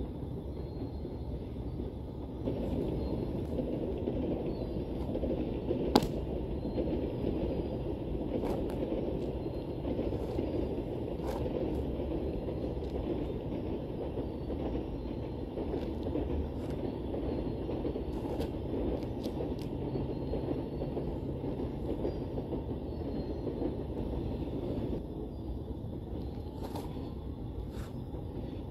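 A steady low rumble that grows louder about two seconds in and eases near the end, with a single sharp click about six seconds in and a few fainter ticks.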